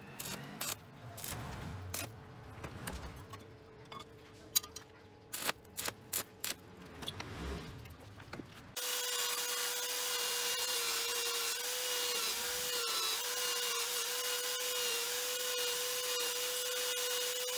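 Scattered light clicks and knocks, then from about nine seconds in a bench belt sander runs steadily: a held motor hum with an even grinding hiss as the edge of a steel bracket is pressed against the abrasive belt.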